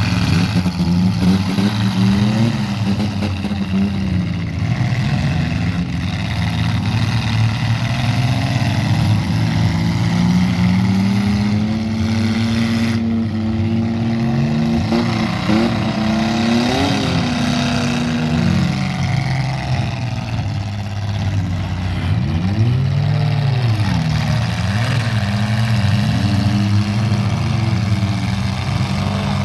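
Several compact demolition derby car engines running together. They rev again and again, their pitches rising and falling as the cars accelerate and back off, over a steady low drone.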